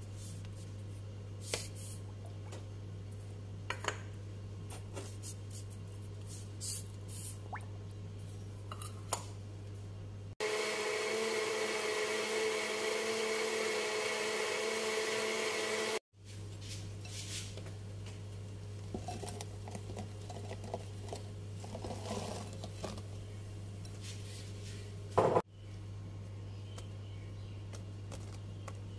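Small electric blender running steadily for about six seconds, blending a liquid chilli-lime dressing; it starts and stops abruptly. Around it, light clinks and handling of the plastic blender jar over a steady low hum, with one sharp knock near the end.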